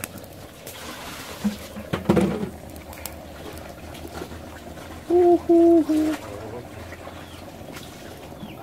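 A dove cooing three short, level notes, the last slightly lower, about five seconds in, over the low crackle and hiss of a wood fire burning under a clay pot.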